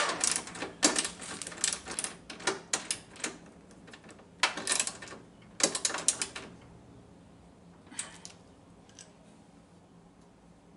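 Rapid metallic clicking and rattling of a hand tool fastening a battery cable to its terminal on a lawn tractor, in several quick clusters over the first six seconds or so, then two single clicks.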